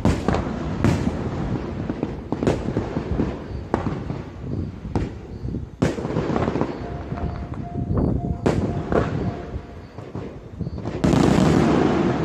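Fireworks going off: a string of sharp bangs, about one a second, with crackling between them, then a louder, sustained rush of noise about a second before the end.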